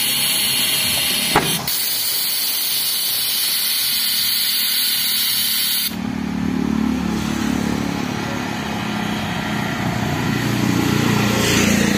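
Compressed air hissing steadily through a homemade pneumatic tyre bead breaker as its cylinder drives a shoe against a tractor tyre's bead, with a sharp click about a second and a half in. The hiss cuts off abruptly about six seconds in, leaving a lower steady mechanical hum.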